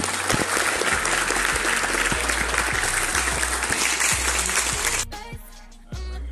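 Audience applauding, a dense clapping that stops abruptly about five seconds in. Background music with singing plays underneath and carries on alone after the clapping stops.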